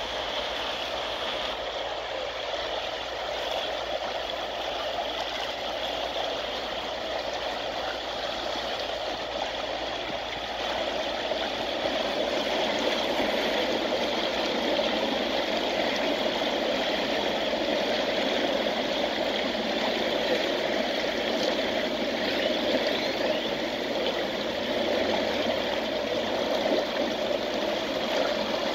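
Whirlpool pool jets churning and bubbling the water, a steady rushing that grows louder about eleven seconds in.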